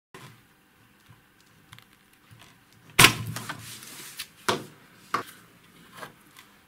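Circuit board being pulled out of the metal card cage of an avionics display unit: a loud clack about three seconds in, a brief rattle, then three lighter clicks as the board slides free.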